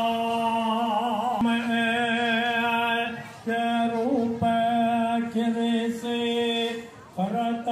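A male voice chanting a Brahmin mantra in long held notes, breaking briefly about three seconds in and again near the end.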